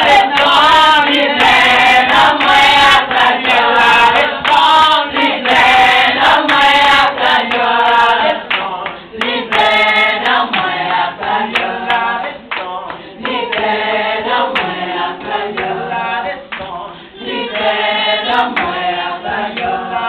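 A group of women singing a worship song together, with hand clapping running through the singing.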